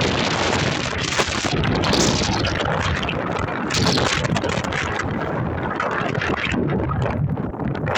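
Wind rushing over the microphone, a loud noise that rises and falls in gusts.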